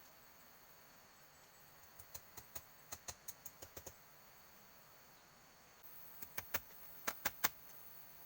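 Two quick runs of sharp taps or clicks, the first about two seconds in and the second near the end, over the steady high buzz of forest insects.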